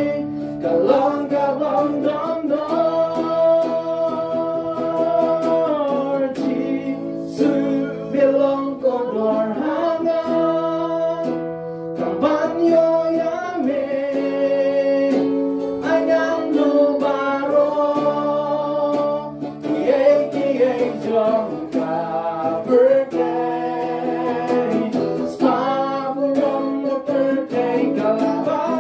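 A man and a woman singing a gospel song together, accompanied by a strummed acoustic guitar.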